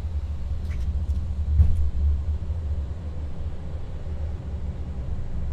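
Steady low rumble of air buffeting the Airbus A330-300's landing gear as it extends, heard in the cockpit, with a sharp click about a second and a half in.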